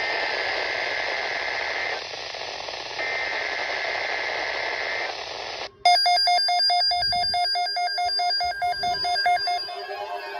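NOAA Weather Radio reception full of static hiss, carrying two bursts of SAME header data about two seconds each, a second apart. About six seconds in, the static cuts out and a loud, rapidly pulsing electronic alert tone starts, giving way near the end to a warbling, siren-like tone.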